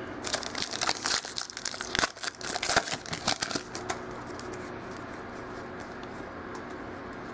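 A foil trading-card pack wrapper crinkling and tearing as it is opened, dense crackling for about four seconds, then it stops and only faint room tone remains.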